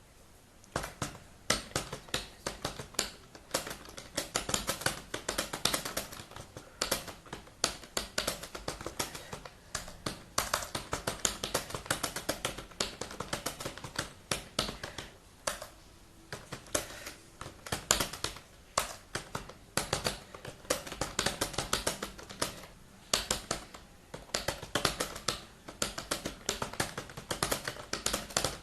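Computer keyboard being typed on at speed, fast runs of key clicks with brief pauses between bursts.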